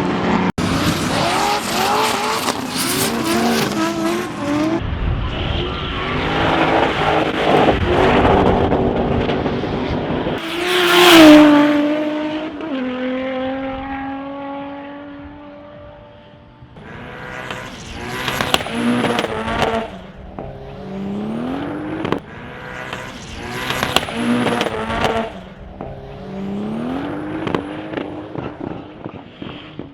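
Race cars at full throttle on track, engines revving up and down through gear changes, with some tyre squeal. About eleven seconds in, one car passes loudly and its engine note falls away as it goes off; more cars follow, revving hard.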